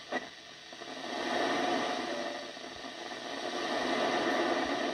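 Static hiss from a Yaesu FT-102 transceiver's receiver on 10-metre FM between transmissions, with a short click near the start and the noise swelling after about a second.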